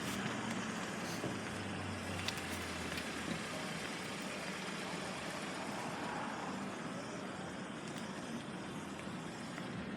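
Steady background noise of distant road traffic, with a few faint clicks.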